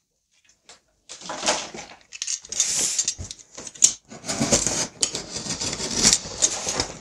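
Cardboard shipping box being opened by hand: rustling and scraping of the cardboard flaps and packing tape, with a few sharp clicks, starting about a second in.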